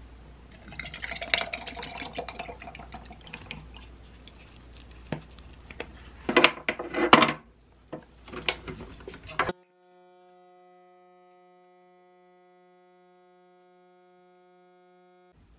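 Almond milk poured over ice in a glass, then clatter and clicks as a capsule is loaded into an illy capsule espresso machine. From about ten seconds in, the machine gives a faint, steady, even hum while it brews the espresso shot.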